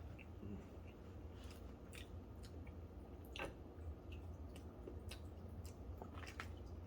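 A person chewing food close to the microphone, with faint wet mouth clicks and smacks scattered throughout, over a low steady hum.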